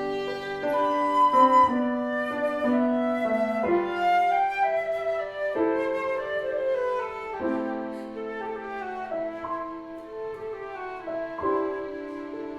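Instrumental trio playing a melody over held chords, the notes changing every second or so.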